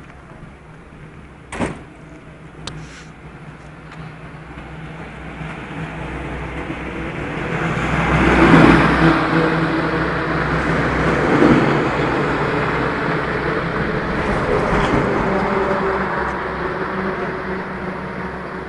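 Heavy lorries passing on a highway: engine hum and tyre noise swell from a few seconds in, peak around the middle and stay loud before easing near the end. A single sharp knock sounds near the start.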